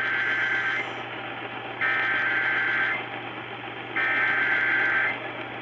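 Emergency Alert System SAME header: three one-second bursts of shrill digital data warble, about a second apart, over a hissy radio broadcast. These are the coded header that starts an EAS activation, here for a severe thunderstorm warning.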